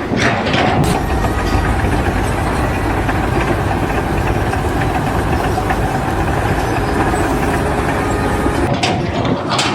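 An engine running steadily and loudly, with a heavy low rumble.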